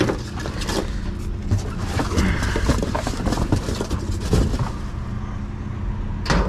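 A vehicle engine running steadily, with scattered knocks and rustles of scrap and debris being shifted in a dumpster.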